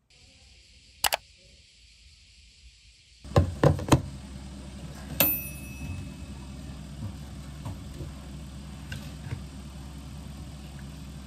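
Tableware being handled on a kitchen counter: three knocks in quick succession, then a single sharp clink that rings briefly, over a steady low background hum. A sharp double click comes about a second in, before the room sound begins.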